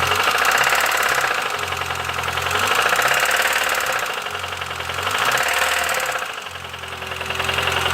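Petrol car engine running with a rapid metallic clatter. Its speed rises and falls a few times.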